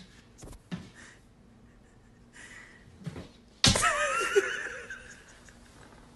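A few soft knocks, then a sudden thump followed by a wavering high-pitched voice that fades over about a second and a half.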